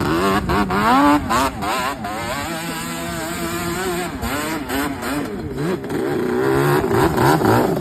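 Yamaha Banshee 350 quad's twin-cylinder two-stroke engine being revved up and down repeatedly, holding a steadier pitch for a second or so in the middle before revving again near the end.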